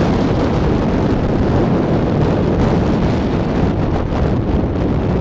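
Steady wind buffeting the microphone over the running noise of a moving passenger train, heard from the open window or door of a coach.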